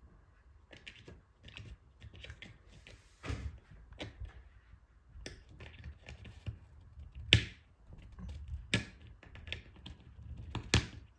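A cat's paw and claws scratching and tapping at the edge of a kitchen cabinet door, a scatter of small clicks and scrapes, with three sharper knocks from the door about seven seconds in, near nine seconds and near the end.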